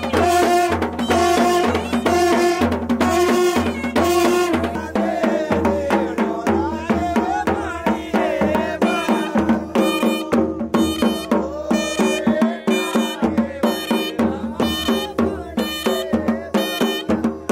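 Indian folk-style music with a steady hand-drum beat and a pitched melody that is strongest in the first few seconds.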